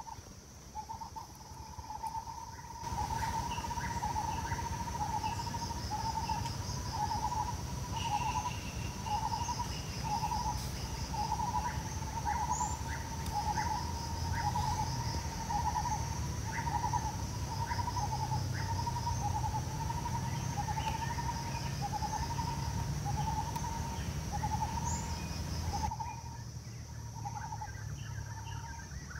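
A bird repeating a short mid-pitched call about once a second, over a steady high-pitched insect drone. A low rumble comes in about three seconds in and drops away near the end.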